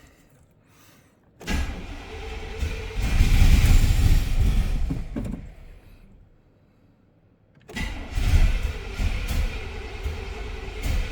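1994 Chevy K1500 truck's engine being cranked over by the starter without catching, in two tries: one of about four seconds starting a second and a half in, then a second starting about two seconds after the first stops. It cranks but won't fire because no fuel is reaching the rebuilt throttle-body injectors.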